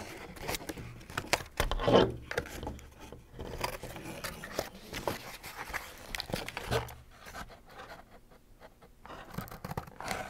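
Scissors cutting through corrugated cardboard: a series of short snips, with the stiff sheet being handled, and a louder bump about two seconds in. The cutting eases off about seven seconds in.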